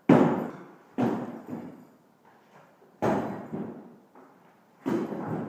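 Guandao (Chinese broad-bladed polearm) hacking into a drywall wall: four heavy blows, at the start, about a second in, about three seconds in and near the end, each dying away quickly.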